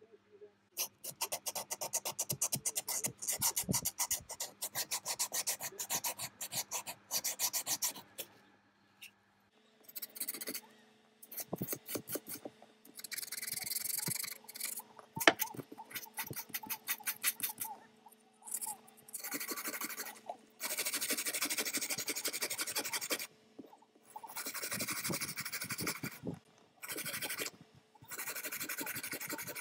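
Steel vernier caliper being worked by hand with an abrasive to clear rust and gunk. Rapid short scraping strokes for about eight seconds, then longer rubbing strokes of one to two seconds each with brief pauses.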